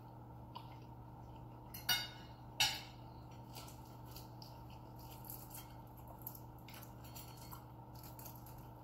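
Sounds of eating at a table: two sharp clinks of cutlery against a plate about two seconds in, then small faint clicks of eating and handling food, over a steady low hum.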